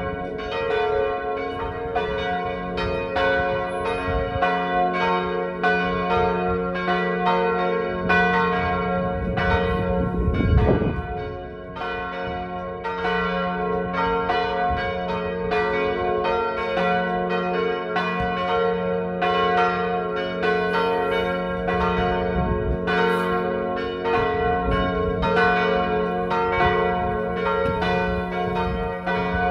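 Church bells tuned to G-flat, B-flat and D-flat swinging in a full peal, their strokes overlapping and ringing on continuously. A brief low rumble comes about ten seconds in.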